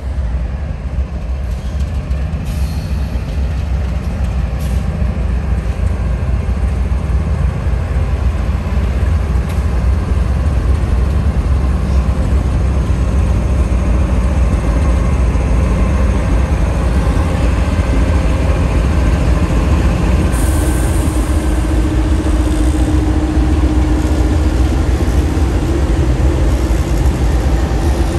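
Union Pacific diesel-electric locomotives leading a departing freight train, running under power as they draw up and pass close by. A heavy low engine rumble grows louder as they come near, and a high hiss joins about two-thirds of the way through.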